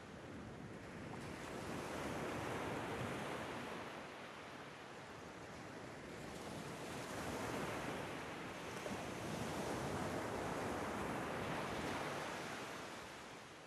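Ocean waves washing in, a steady rushing noise that swells and ebbs in two slow surges.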